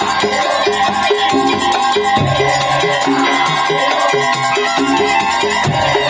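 Madurese tongtong percussion ensemble playing a fast, busy rhythm, with short pitched notes repeating over a steady stream of struck percussion.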